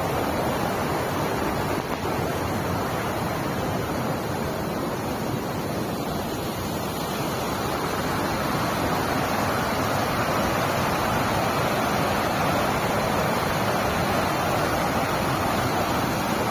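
Waterfall: water pouring and rushing in a steady noise, swelling slightly about halfway through.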